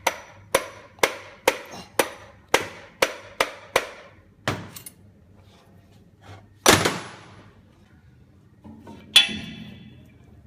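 Hammer blows on metal parts of a Hydramatic automatic gearbox during its rebuild: about nine quick taps, roughly two a second, then three slower, heavier blows. The heavy blows come about halfway through and near the end, and the last two ring out.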